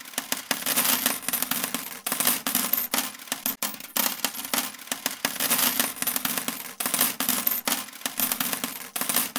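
Coins jingling and clattering continuously, a dense run of metallic clinks.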